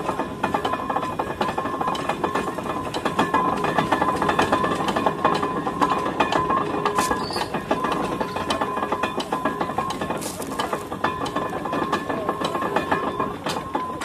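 Steam ploughing engine winding in its wire rope: the drum and gearing clatter rapidly with a steady whine as the balance plough is hauled toward the engine, the whine stopping just before the end.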